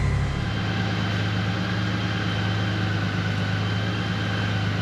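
Honda Gold Wing's flat-six engine idling: a steady low hum.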